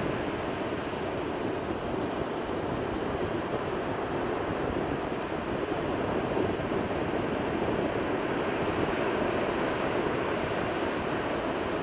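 Ocean surf washing onto a beach: a steady rushing of breaking waves that swells and eases slowly.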